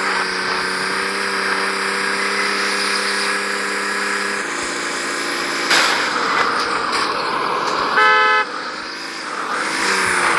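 Video-game vehicle engine running at a steady pitch that drops a step about four and a half seconds in. A sudden loud noise comes near six seconds, and a short car-horn blast about eight seconds in.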